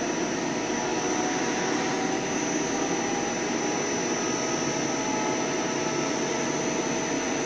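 CNC lathe running with its spindle and chuck turning, a steady whir with a constant high-pitched whine over it.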